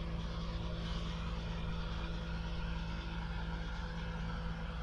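Steady low mechanical hum of distant engines, with a few constant tones and an even level throughout.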